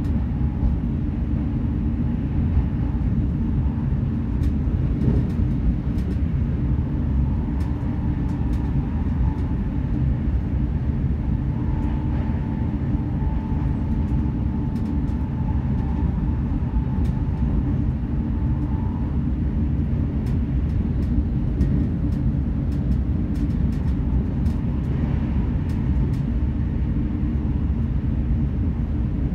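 Steady rumble and rush inside a GWR Hitachi intercity train's passenger coach at high speed: wheels running on the rails and air noise. A faint whine comes and goes, with a few light clicks.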